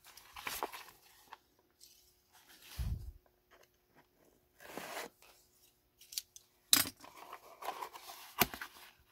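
A small cardboard box being handled, its tape slit with a box cutter and its lid lifted open: scattered scrapes and rustles with a few sharp clicks, and a low thump about three seconds in.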